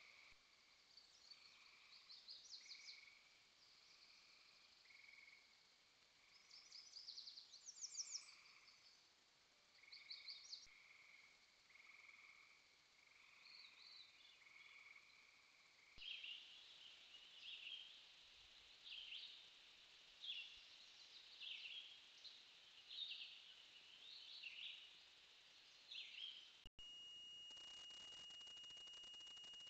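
Faint night chorus of animal calls: short notes repeated about every second, with occasional fast trills. The calls change pattern partway through. Near the end they stop abruptly and give way to a steady high whine over hiss.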